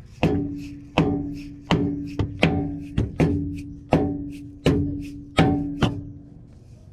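A 2-pound dead blow hammer striking a vehicle speed sensor to seat it into the transmission housing: about ten evenly paced hits, roughly one every 0.7 seconds, each with a short ringing tone.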